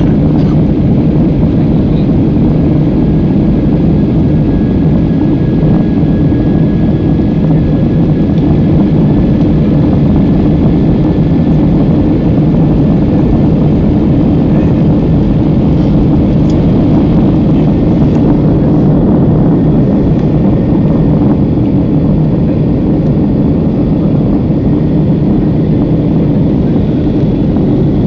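Passenger airliner's engines during takeoff and climb, a loud steady rumble with a faint steady whine through the first half.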